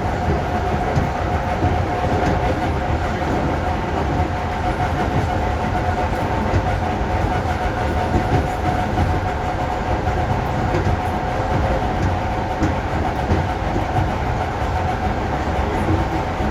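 ED4M electric multiple unit running under traction power at a steady speed: a constant whine from the traction motors and gearing over the rumble of the wheels on the rails.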